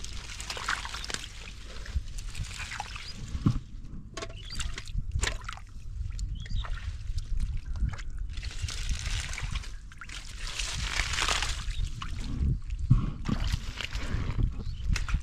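Hands and feet working in shallow muddy water, sloshing and splashing unevenly as the mud is groped through for fish, with a few sharp knocks.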